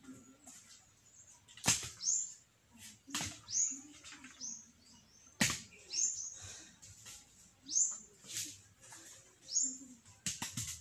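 A few sharp knocks of coconuts being handled and piled, with a quick run of knocks near the end. Between them, a bird gives a short falling chirp about six times.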